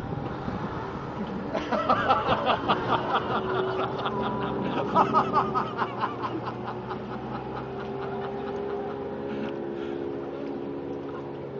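A person laughing in quick bursts from about two seconds in to about six seconds in, over the steady hum of a motorboat engine.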